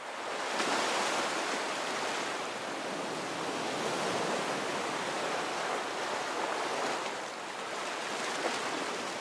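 Steady, even rushing noise, like rushing water, fading in over the first second and holding level, with no music or voices.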